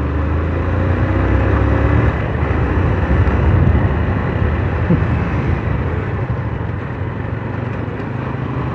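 Hero ZMR motorcycle riding under way: the engine running steadily, mixed with road and wind noise on the microphone.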